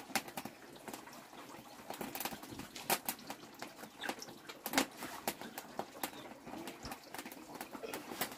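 Scattered sharp clicks and light knocks: a large metal cooking pot being handled on a wood-fired clay stove, with the fire burning underneath.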